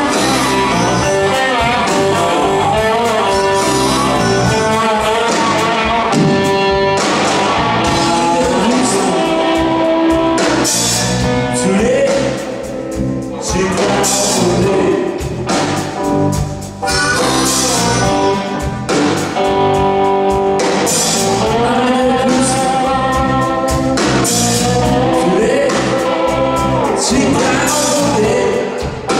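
Live band playing a slow blues: a man singing at the microphone over electric guitar, bass guitar and drum kit.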